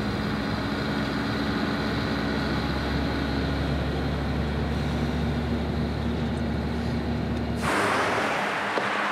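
Truck engine droning steadily, heard from inside the cab. About three-quarters of the way through it cuts off abruptly and gives way to a broad hiss.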